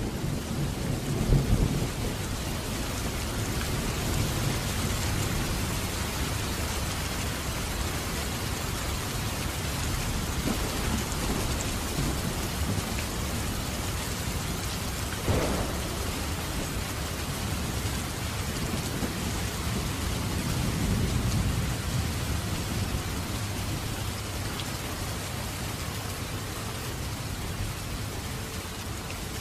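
Heavy rain pouring down steadily, with low rumbles of thunder near the start and again later. A brief louder noise stands out about halfway through.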